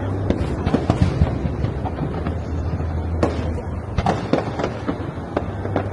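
Aerial fireworks going off: a scattered run of sharp bangs and pops. Several come close together in the first second or so and again about four seconds in, over a steady low hum.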